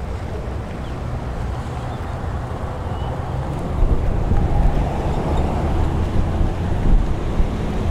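Wind buffeting the microphone aboard a moving cruise ship, over a low rumble and the rush of water, gusting louder about halfway through.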